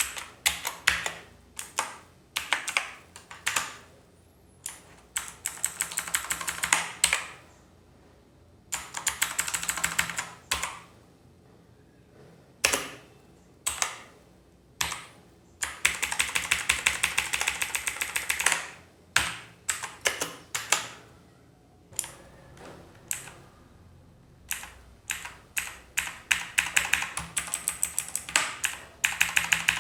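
Typing on a Redgear Chameleon mechanical keyboard with clicky blue switches: bursts of fast keystrokes, each a sharp click, broken by short pauses, with a stretch of steady rapid typing about halfway through.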